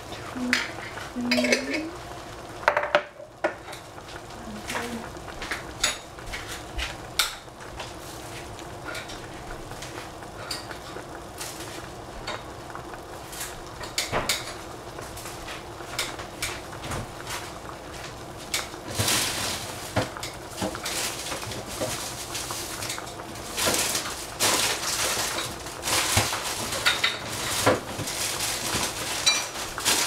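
Kitchenware being handled: glass jars, utensils and pots clinking and knocking in many short, irregular strikes, busier in the second half.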